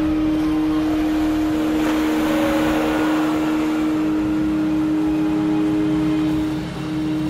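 Steady hum with one strong held tone and fainter tones above it. A rushing swell comes up about two seconds in and fades. The sound shifts with a brief dip near the end.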